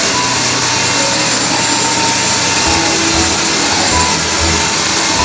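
Hexacopter drone hovering, its six propellers and onboard suction fan making a loud, steady whirring rush.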